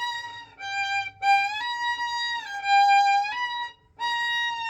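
Solo violin playing a slow phrase of sustained bowed notes that step back and forth between a higher and a lower pitch, with a short pause near the end. The phrase demonstrates a small left-hand shift back from 3rd to 2nd position.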